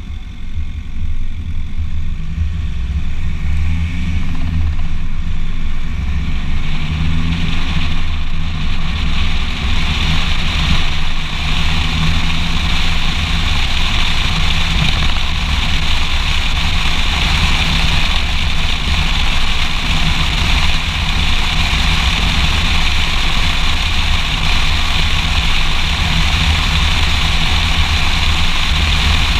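Audi A4 B6 driving on asphalt: wind buffeting the microphone of a camera mounted on the front fender, with tyre and road noise. The noise builds over the first ten seconds or so as the car gathers speed, then holds steady.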